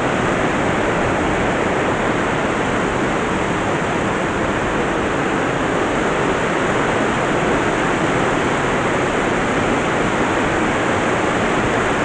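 A waterfall's falling water rushing steadily and evenly, with no change throughout.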